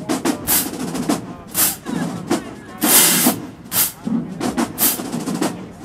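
Marching band drumline playing a cadence: snare and bass drum hits with repeated cymbal crashes that ring briefly.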